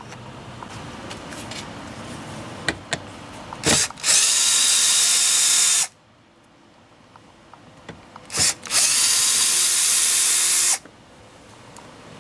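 Power drill running in two spells of about two seconds each, each with a short blip just before it, backing out Phillips screws.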